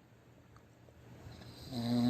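Snoring: a quiet lull, then a hiss about a second and a half in, then a loud snore with a steady low pitch that begins just before the end.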